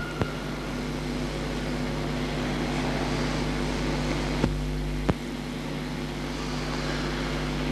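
Steady electrical hum and hiss of an old live microphone recording during a pause in the recitation, with a few sharp clicks, two of them about half a second apart midway.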